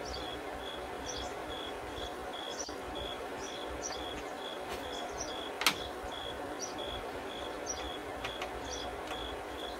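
Crickets chirping steadily in short, even pulses at one pitch, about three a second, with scattered higher chirps over a low background hum. A single sharp click sounds a little past halfway and is the loudest moment.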